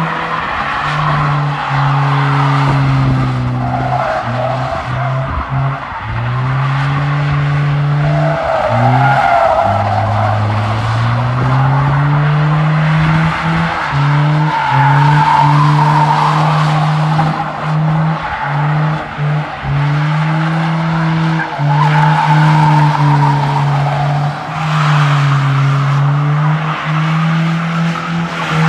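Nissan Hardbody D21 pickup doing skids on its welded rear differential: the engine is held at high revs, dipping and climbing with the throttle, while the rear tires squeal against the pavement.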